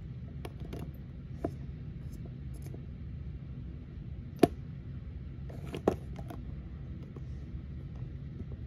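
Handling noise from a small Hot Wheels toy quad with rubbery tyres as it is turned and set on a hard surface: scattered light clicks and knocks, the sharpest about four and a half seconds in and a couple more around six seconds, over a steady low hum.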